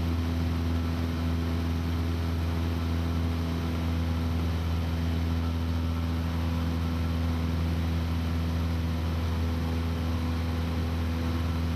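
Steady engine drone of the aircraft the footage is shot from, heard from inside it: an unchanging low hum with a wash of noise above it.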